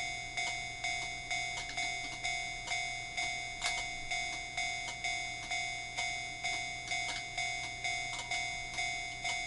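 Model railway level-crossing warning bell ringing in a steady 'kan-kan' rhythm, about two strikes a second, each strike fading before the next. A few faint clicks sound under it.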